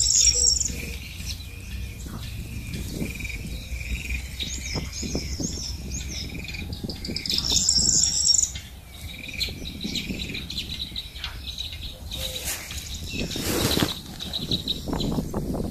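Small birds chirping and singing in short repeated phrases, loudest at the start and again about eight seconds in. A brief rustling noise comes about thirteen seconds in.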